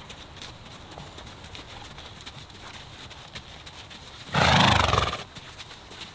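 A horse whinnies loudly once, a wavering call of about a second, starting about four seconds in, over faint hoof thuds on the ground.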